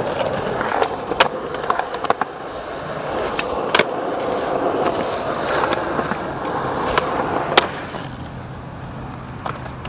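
Skateboard wheels rolling steadily over rough, cracked concrete and asphalt, with a few sharp clacks along the way. The rolling gets a little quieter near the end.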